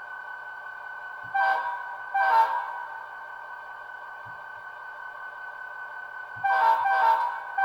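Bachmann GP35 model locomotive's sound decoder playing a Leslie RS-3L air horn through its small onboard speaker: two short blasts about a second in, then two more close together near the end, over the decoder's steady idling hum.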